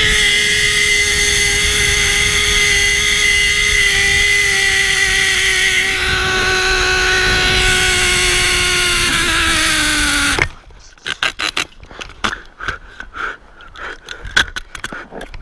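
Zipline trolley pulley running fast along a steel cable, a steady high whine over wind noise, sliding down in pitch as it slows and stopping abruptly about ten seconds in. Afterwards, scattered clicks and rubbing from a carabiner being handled on the cable.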